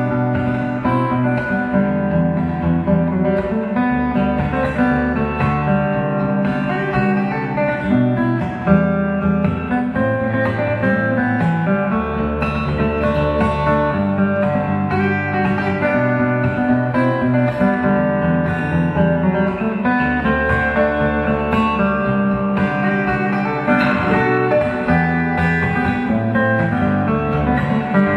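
Solo fingerstyle steel-string acoustic guitar played live: long held bass notes under a picked melody, with no pause.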